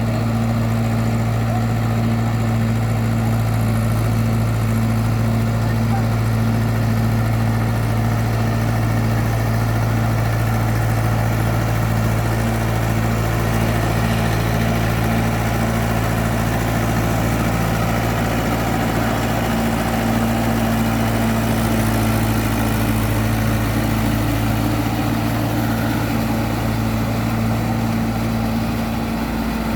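Tractor engine running steadily at a constant pitch while ploughing.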